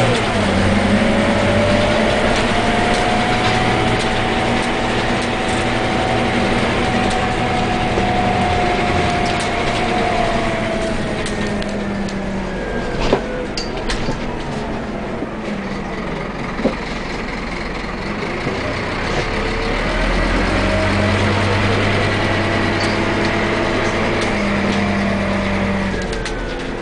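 Scania Omnilink bus engine and drivetrain heard from inside the passenger saloon while the bus drives: a steady running note with a whine that slowly rises and then falls away. It eases off about halfway, with two sharp knocks, then builds up again before dropping near the end.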